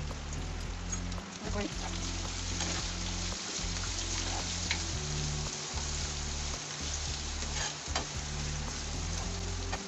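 Sliced onions sizzling in hot oil in a nonstick frying pan while a plastic spatula stirs them, with a sharp scrape or tap of the spatula against the pan every second or two.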